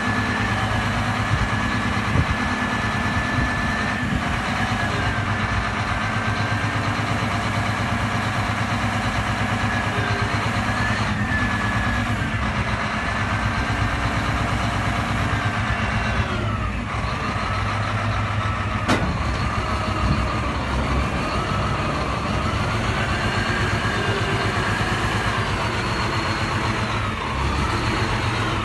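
Diesel engine of a Terex TA400 articulated dump truck idling steadily. Over the second half a higher whine rises and falls repeatedly above the idle.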